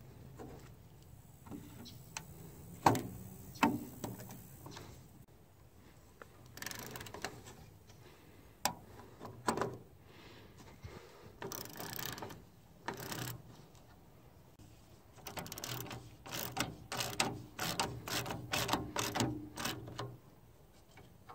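Hand socket ratchet clicking in quick bursts as it turns a bolt, with a couple of sharp metal knocks a few seconds in.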